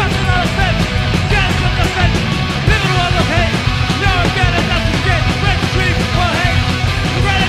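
Punk rock band playing: shouted vocals over electric guitars, bass and drums.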